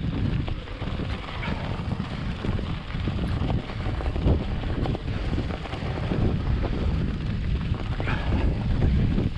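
Wind buffeting a GoPro Hero 7 Black's microphone: a gusty, uneven low rumble that swells and drops throughout.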